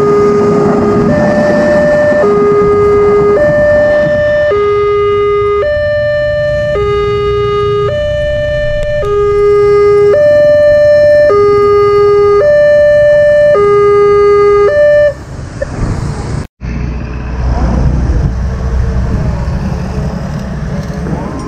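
Railway level-crossing warning alarm sounding a two-tone electronic signal, switching between a low and a higher tone about once a second, over the rumble of a passing passenger train. The alarm stops about fifteen seconds in, and road traffic with passing motorcycles follows.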